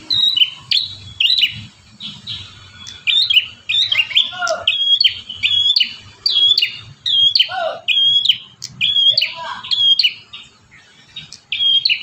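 Caged prenjak tamu songbird singing a rapid, steady string of sharp high chirps, about two a second, with a few lower warbling notes in between.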